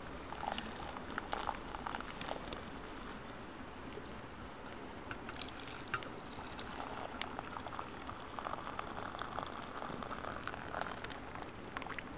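Liquid sounds from a just-boiled Kelly kettle: hot water bubbling and being poured, with scattered light clicks.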